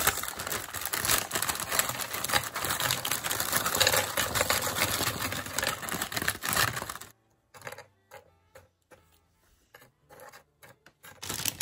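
Vanilla wafers clattering into a glass baking dish as they are shaken from a crinkly plastic bag, a dense rapid clicking for about seven seconds. After that, only a few light taps as the wafers are pushed into place on the glass.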